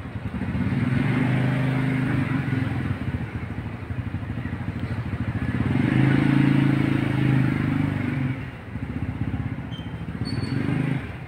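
Motorcycle engine running close by with a steady low hum, growing louder about six seconds in and easing off for the last few seconds.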